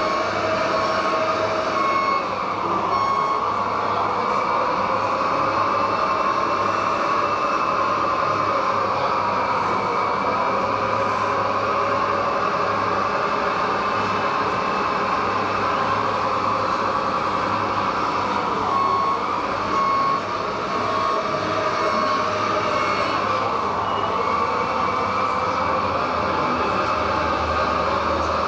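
Radio-controlled scale Volvo wheel loader's electric motors and hydraulic pump whining steadily, the pitch rising and falling as it moves and works its bucket. A warning beeper sounds in short runs of beeps about once a second near the start and again about two-thirds of the way through.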